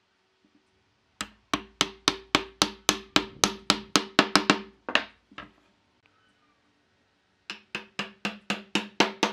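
Wooden mallet knocking a glued wooden chair upright down into its mortise in the base, wood on wood. A quick run of about four or five knocks a second, each with a short hollow ring, lasts some four seconds. After a pause a second run starts near the end.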